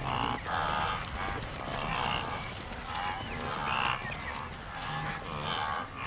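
A herd of wildebeest calling: repeated short, nasal grunting calls, roughly one a second, overlapping from several animals.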